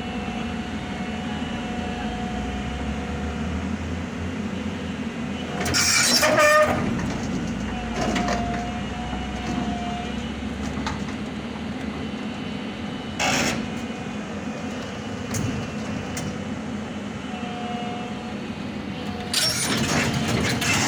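Excavator's diesel engine running steadily under load, with a low rumble through the first half and faint squealing tones, broken by short louder noises about six and thirteen seconds in and again near the end.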